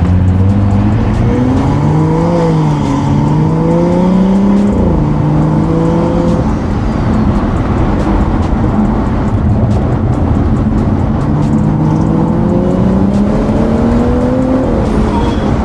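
BMW 335i's N55 turbocharged inline-six, fitted with a catless downpipe and the stock muffler, pulling under acceleration, heard from inside the cabin. The engine note climbs, drops sharply at a gear change about five seconds in, holds, then climbs again and drops once more near the end.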